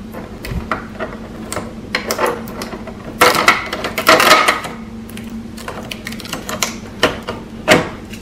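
Cardboard-and-tape shipping restraint being worked out of an inkjet printer's printhead carriage by hand: scattered plastic clicks with cardboard and tape rustling, busiest about three to four and a half seconds in, and two sharp clicks near the end.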